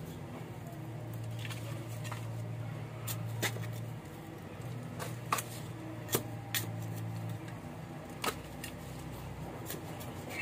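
Scattered light clicks and taps from hands handling pots and plant cuttings, over a low steady hum that swells and eases in stretches.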